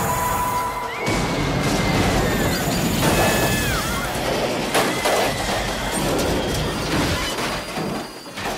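Movie battle sound effects of a helicopter gunship crashing: a long, dense din of crashing and explosion with short metallic squeals, and a sharp crack about five seconds in. Music runs underneath.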